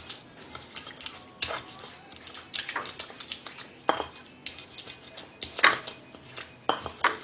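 Utensils clinking and knocking against dishes in a string of irregular short strikes, the loudest a little over halfway through.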